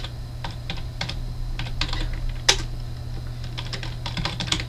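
Typing on a computer keyboard: irregular key clicks, a few a second, over a steady low hum.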